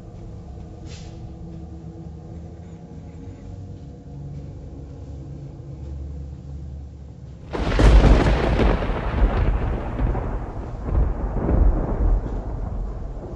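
A low steady rumble with faint held tones, then a sudden loud crash about halfway through that rolls on and slowly fades.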